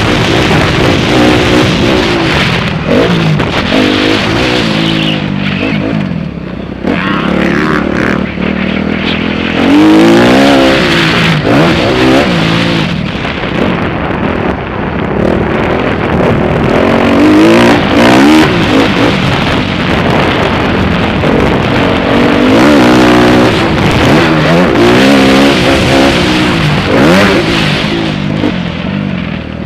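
Motocross bike engine heard loud and close from the rider's own bike, revving up and dropping back over and over as it accelerates and slows around a dirt track.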